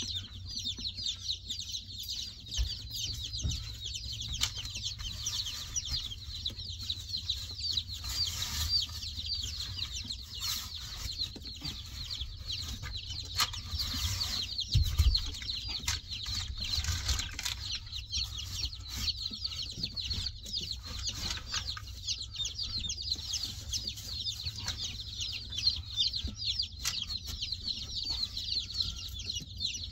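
A crowd of baby chicks peeping nonstop in a dense, high-pitched chorus, with a few dull knocks of the plastic waterer being handled, the loudest about halfway through.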